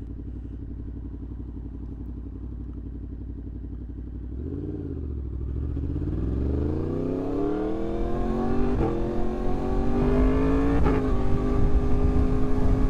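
2024 Yamaha MT-10's crossplane inline-four, through a RaceFit Growler X exhaust, running low and steady, then blipped once about four seconds in before the revs climb under hard acceleration. The note breaks briefly twice as it rises, then holds steady at higher revs near the end.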